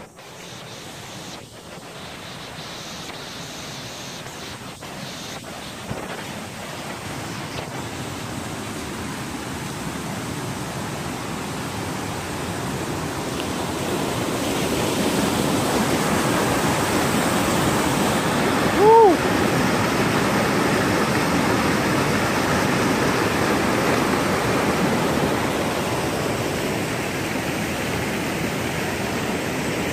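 Rushing water of a rocky stream and waterfall, growing steadily louder over the first half and then holding even. Near the middle, a short sliding pitched call stands out briefly, and there are a few light knocks in the first seconds.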